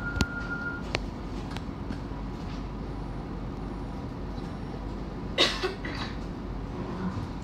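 Citadis Dualis tram-train at a stop: a steady high door warning tone stops under a second in, with a couple of sharp clicks as the doors shut. Then comes the steady low rumble of the tram-train, with a short hiss about five and a half seconds in.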